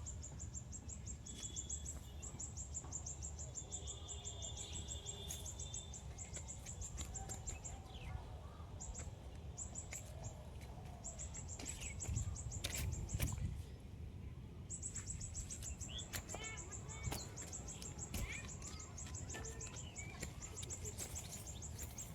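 An insect calling in a rapid, high-pitched train of even pulses, breaking off now and then and starting again, with a few short bird chirps. Low wind rumble on the microphone swells briefly about halfway through.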